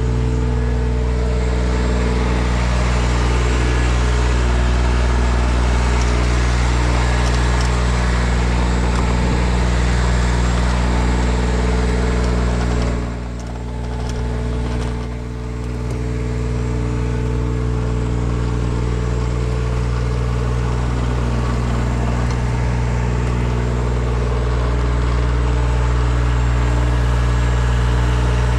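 An engine running steadily at a constant speed, with the level dipping briefly twice about halfway through.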